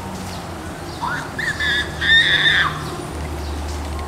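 California sea lion pup calling: one high call that rises at the start and lasts about a second and a half.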